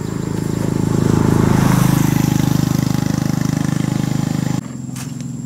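A vehicle engine running steadily, growing louder over the first two seconds and then holding, before it cuts off abruptly about four and a half seconds in.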